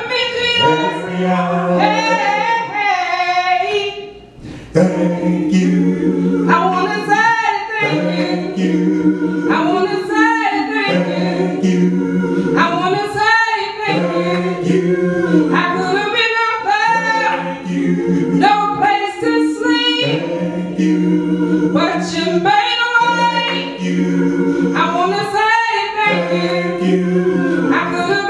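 A woman singing into a handheld microphone, in sung phrases of a few seconds each with short breaks between them, the longest break about four seconds in.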